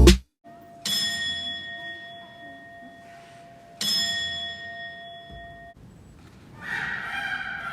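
A bell struck twice, about three seconds apart, each strike ringing out and fading. Near the end a wailing siren-like tone starts up and keeps going.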